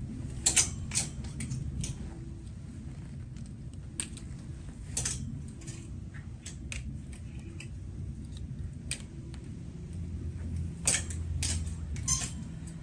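Metal clothes hangers clicking and scraping as they are pushed along a metal garment rail, in about a dozen irregular clicks over a low steady hum.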